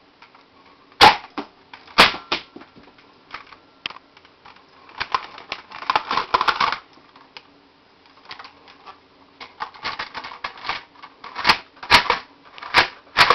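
Sharp plastic clicks and rattling from a Nerf Defender T3 blaster being handled: two loud clicks about a second apart near the start, a run of rattling in the middle, and more loud clicks near the end.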